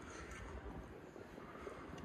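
Quiet indoor background: a steady low rumble and hiss, with a few faint ticks.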